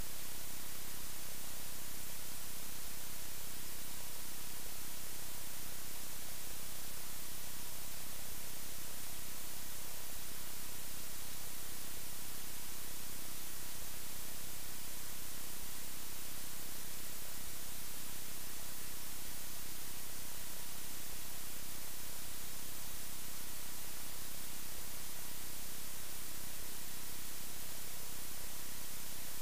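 Steady hiss of recording static with faint steady hum tones, unchanging throughout; no knife or carving sounds stand out from it.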